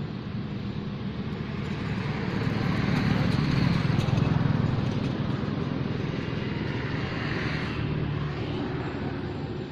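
A motor vehicle's engine rumbling, growing louder to a peak about four seconds in and then fading, as when a vehicle passes.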